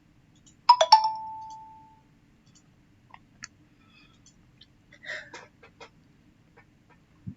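A two-note chime, a higher ding and then a lower one that rings on for about a second, then a few light clicks and taps of small parts being handled.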